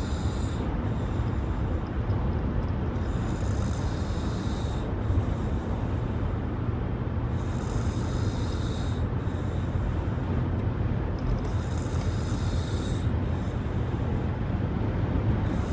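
A woman snoring while asleep in a moving car, a breathy rasp about every four seconds, over the steady low rumble of the car on the road.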